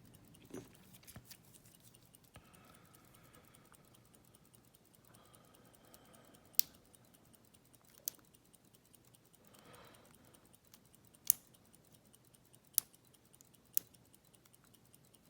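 Pick and tension tool working the pin stack of a Master Lock lockout padlock: faint scraping with five sharp, scattered metallic clicks from about six seconds in.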